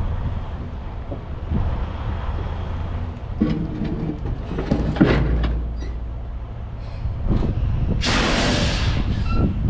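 Heavy diesel engine running steadily with a low rumble. There are a few metallic clanks about three and a half and five seconds in, and a loud hiss lasting about a second that starts about eight seconds in.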